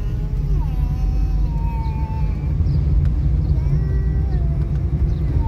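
Steady low rumble of street traffic, with a few faint, long, wavering tones drifting over it.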